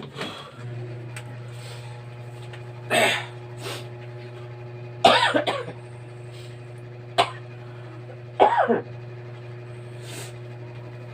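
A person coughing in several separate short fits, typical of choking on the heat of very spicy noodles, over a steady low hum.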